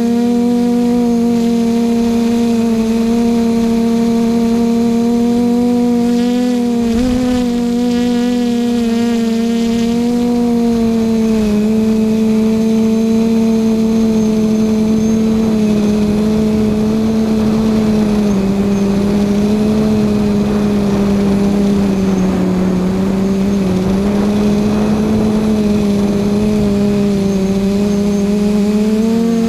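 Quadcopter's electric motors and propellers running with a steady multi-toned hum, picked up by the camera mounted on the craft; the pitch wavers and sags slightly as it flies. Wind rush over the microphone builds from about twelve seconds in.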